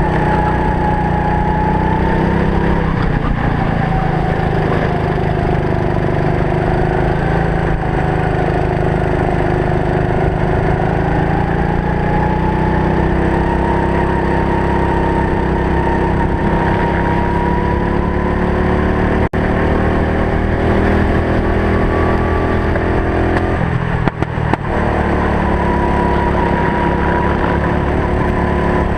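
Racing go-kart engine running under load, its pitch rising and falling as the kart accelerates and lifts off around the circuit. The sound drops out briefly about two-thirds of the way in.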